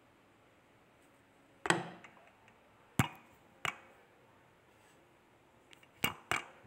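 Handling noise from a phone being moved and set in place: about five short, sharp knocks and clicks with quiet between, two of them close together near the end.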